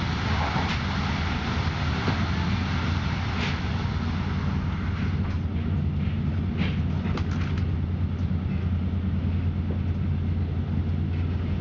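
Steady low rumble of a moving passenger train, heard from inside the carriage, with a few faint clicks from about five to eight seconds in.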